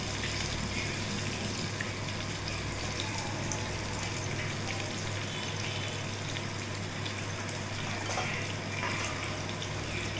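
Steady sizzle of food deep-frying in hot oil, with small crackles over a low steady hum.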